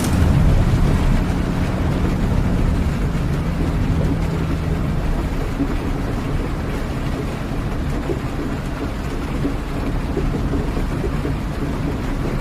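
Steady rain noise over the low, even drone of a vehicle's engine, as if heard from inside the vehicle. The engine's hum shifts slightly about five seconds in.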